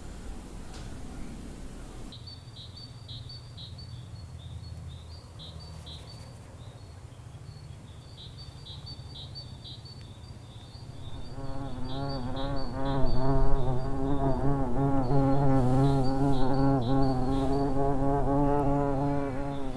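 Honeybees buzzing at the entrance of a wooden beehive. A low steady hum becomes much louder about eleven seconds in, its pitch wavering.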